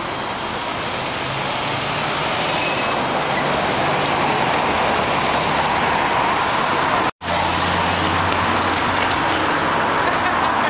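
Steady city street traffic noise with cars and a trailer passing. It drops out for an instant about seven seconds in, then goes on with a low steady hum underneath.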